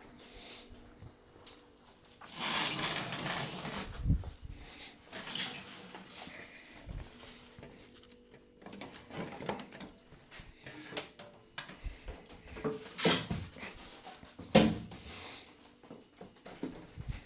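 Handling sounds of unpacking an appliance: a rustle of packaging being pulled away a couple of seconds in, then scattered knocks and clicks, the loudest a sharp knock near the end.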